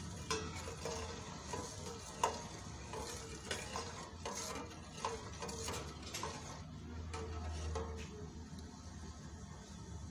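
Metal spoon stirring coconut milk in a metal pot, with irregular light clinks and scrapes against the pot. The milk is being heated with sugar and salt to dissolve them.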